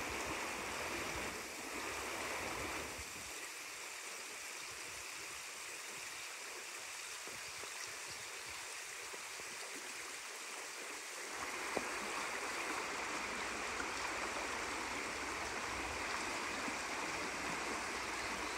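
Shallow stream running over stones and small riffles, a steady babble of water. A single faint click about twelve seconds in.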